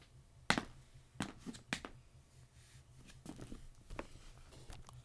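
Tap shoes striking a plywood board as the dancer steps into place: about six sharp, irregular clicks, the loudest about half a second in.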